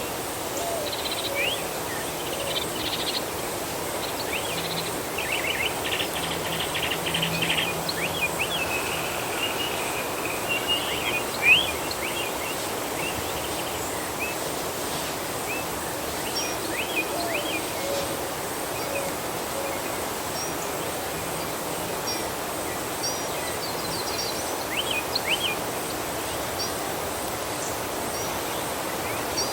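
Forest ambience: small birds chirping in short calls over a steady hiss of background noise, with one louder chirp about eleven seconds in.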